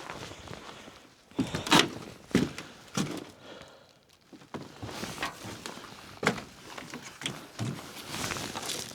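Irregular knocks and thunks, with the loudest cluster about one and a half to two seconds in, as parts and attachments are handled and moved around in a mini excavator's shipping crate.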